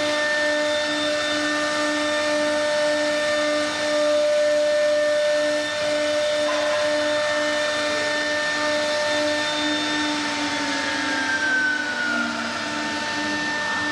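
Three-spindle CNC router running as it engraves a wooden board: a steady machine whine made of several held tones over a pulsing hum, with one tone sliding down in pitch about ten seconds in.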